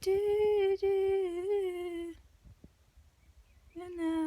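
Unaccompanied voice humming a held, slightly wavering note for about two seconds. After a short pause a second hummed note begins near the end.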